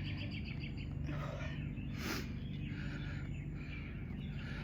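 Faint bird chirping: a quick trill of high repeated notes at the start, then scattered short calls, over a steady low hum. There is a brief breathy rush about two seconds in.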